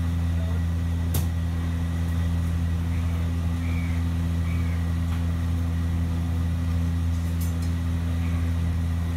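A steady low mechanical hum that holds one level throughout, with a single sharp click about a second in.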